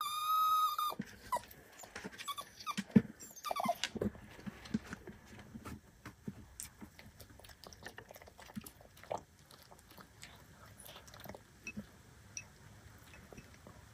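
A black poodle whines in high, thin tones: a longer whine in the first second and two shorter ones a few seconds later. After that come soft scattered clicks and smacks as it eats from a ceramic bowl.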